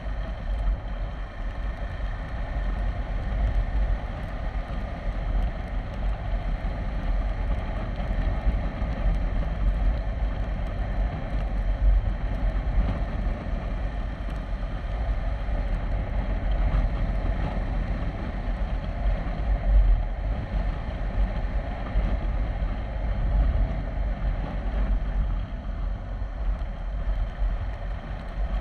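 Wind buffeting the camera microphone in a steady low rumble, over the running of a KTM 390 Adventure's single-cylinder engine cruising at a steady road speed.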